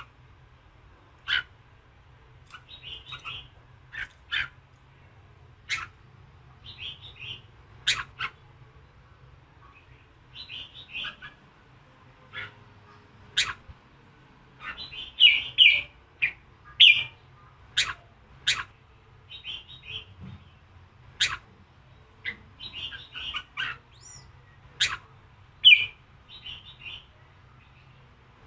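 Red-whiskered bulbul calling in its aggressive 'fighting voice': sharp, sudden single notes every second or two alternating with quick chattering phrases. The recording is meant to provoke and fire up captive male bulbuls.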